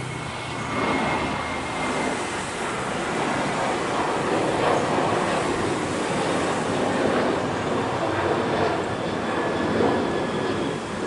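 Jet noise from a climbing Boeing 737 airliner's CFM56 turbofans at takeoff thrust: a steady, broad rushing rumble that swells about a second in and then holds.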